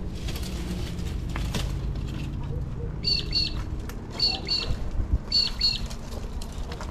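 A bird calling in three pairs of short chirps that drop sharply in pitch, about a second apart, over a steady low rumble.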